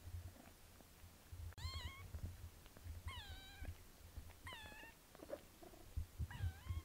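Young British Shorthair kitten mewing four times, short thin high-pitched mews each dipping then rising slightly in pitch, while its mother grooms it, with soft low rustling and small clicks in between.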